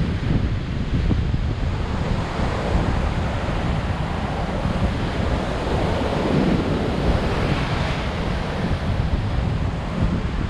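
High surf breaking and washing up a sandy beach in strong wind, with the wind rumbling on the microphone. One wave surges louder about six seconds in.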